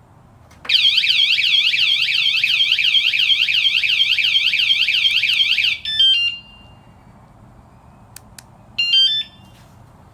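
wsdcam 113 dB wireless vibration motorcycle alarm sounding its siren, a fast up-and-down warble about four times a second, for about five seconds. It then cuts off with a short stepped chirp. Two faint clicks and a second short chirp follow near the end.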